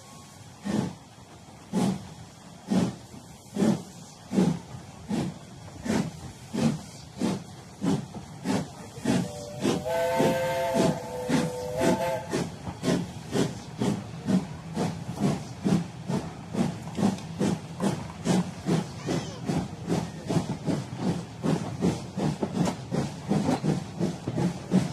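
Steam locomotive chuffing, the beats starting about one a second and speeding up steadily to several a second, as a locomotive pulling away. About ten seconds in, a multi-note chime whistle blows for about three seconds.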